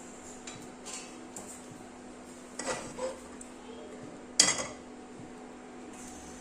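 Cooking utensils knocking and clinking against metal pots and pans: a few light clicks, a knock, then a sharp clank about four seconds in that is the loudest, over a steady low hum.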